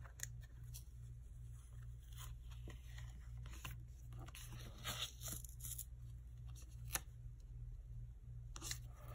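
Paper stickers being handled, peeled and pressed onto a planner page: scattered soft rustles, taps and a short peeling sound, over a steady low hum.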